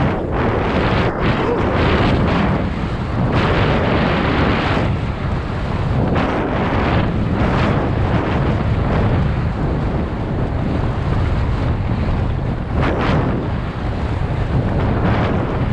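Wind rushing over a helmet-mounted microphone at speed, mixed with mountain bike tyres rolling over a dry dirt and gravel trail, swelling in irregular surges.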